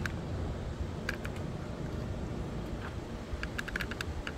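Wind buffeting the microphone in a storm, a steady low rumble, with scattered light clicks that come thick and fast near the end.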